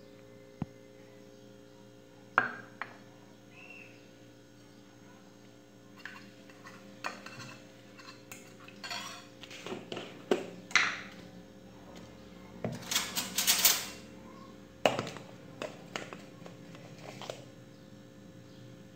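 Kitchen utensils clinking and knocking: a metal spoon and a glass bowl, jars and containers set down and handled on a countertop, in scattered sharp clinks that come more often in the second half, with a longer scraping noise a little past the middle.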